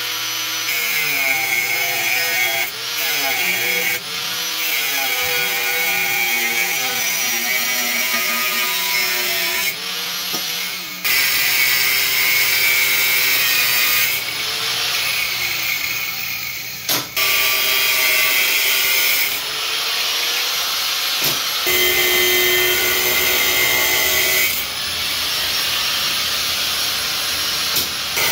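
Power tool cutting into high-carbon steel flat bar, loud and high-pitched, its whine dipping and rising repeatedly. The sound breaks off and resumes abruptly every few seconds.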